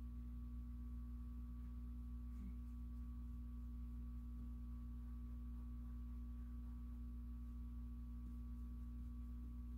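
Steady electrical hum with a few constant tones, low and high, and no other distinct sound: room tone.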